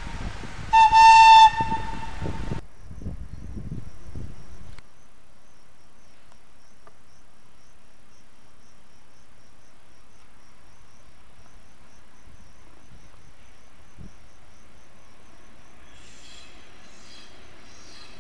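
One short blast, about a second long, of the E646 electric locomotive's horn: a steady tone with overtones, followed by a low rumble for a few seconds. Later only a quiet steady background with faint high chirps near the end.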